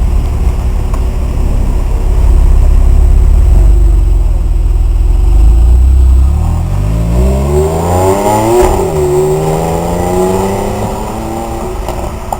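Porsche 911 Carrera GTS flat-six engine with a deep low rumble, then one rev. The note climbs to a peak about eight and a half seconds in, falls back quickly, and settles to a steadier lower note that fades near the end.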